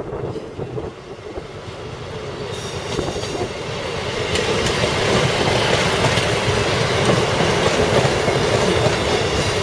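Class 158 Express Sprinter diesel multiple unit passing close by, growing louder over the first few seconds and then running steadily, with the clickety-clack of its wheels over rail joints.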